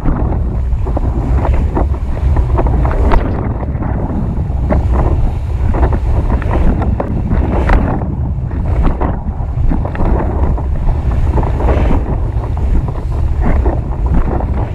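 Wind buffeting a rig-mounted action camera's microphone as a windsurf board sails fast over choppy water: a loud, deep, constant rumble with irregular slaps and splashes of spray off the board.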